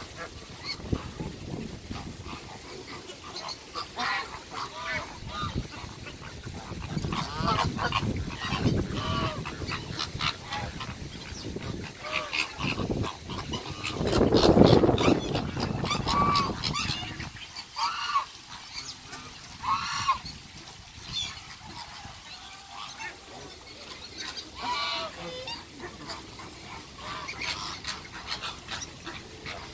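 Mixed waterfowl calling over one another: repeated goose-like honks and duck quacks, many short calls in quick succession, with a louder, lower sound about halfway through.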